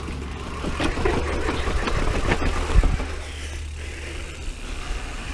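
Mountain bike rolling down a steep paved path: a steady low tyre rumble, with the bike rattling and knocking over bumps between about one and three seconds in, the hardest knock a little under three seconds in.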